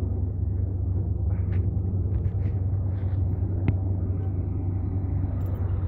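Heavy diesel engine of earthmoving machinery running steadily at idle, a constant low rumble, with one sharp click about three and a half seconds in.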